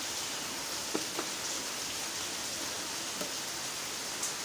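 Steady hiss of rain, with a few faint light clicks scattered through it.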